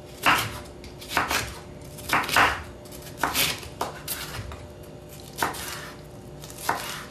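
Kitchen knife slicing through red bell pepper and striking a wooden cutting board, with irregular strokes about a second apart.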